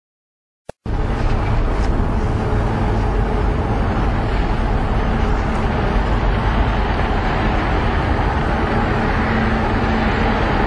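Large Acciona Trasmediterranea ro-pax catamaran ferry passing close alongside: a steady, loud noise of its engines and the water, with a faint low drone. It starts abruptly just under a second in, right after a single click.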